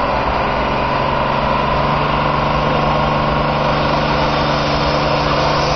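Fiat 1880 pulling tractor's engine running at steady revs, an even drone with no change in pitch.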